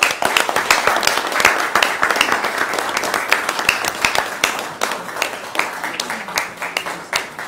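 A small crowd applauding, many hands clapping at once, thinning out toward the end.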